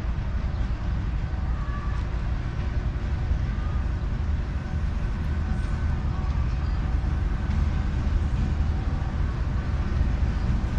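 Diesel locomotive at the head of a passenger train approaching slowly, a steady low rumble, as it comes into the station's loop line to stop and wait for a crossing.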